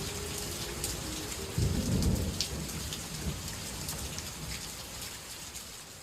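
Rain falling steadily, with a low rumble of thunder about one and a half seconds in, fading away toward the end.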